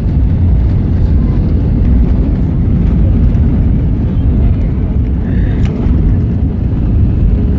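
Airbus A320 cabin noise during landing: a loud, steady low rumble from the engines and airframe, with a faint steady hum above it.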